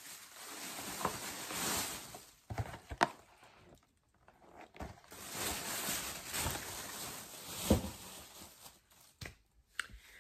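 Rustling as things are handled and moved close to the microphone, in two longer swells, with a few sharp knocks, the loudest about three seconds in and near eight seconds in.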